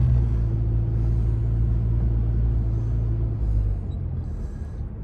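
Car engine and road rumble heard from inside the cabin while driving, a steady low hum that fades and quietens about three and a half seconds in.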